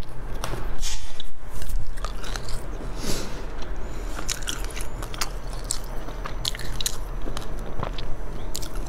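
A person eating into a close microphone: biting and chewing, with irregular sharp clicks and crunches.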